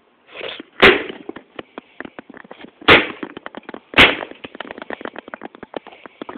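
Gunshots: four sharp shots at uneven gaps of one to two seconds, with a crackle of small clicks between them.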